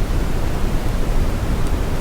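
Brown noise: a steady, deep, even rush with no pattern or rhythm, strongest in the low end and thinning out toward the top.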